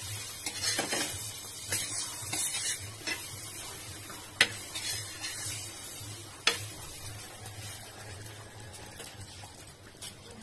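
Light clinks and scrapes of food and a utensil on a stainless-steel plate, with two sharp clinks about four and six and a half seconds in, over a faint sizzle from a bun half toasting in butter on the iron tawa.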